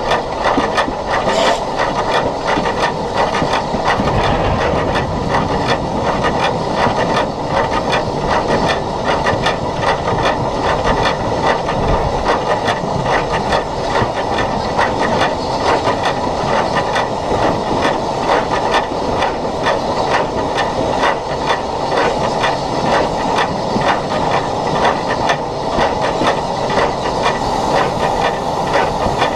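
SECR H class 0-4-4 tank steam locomotive No. 263 working, heard close up on the engine: a steady hiss of steam over the running noise of the locomotive.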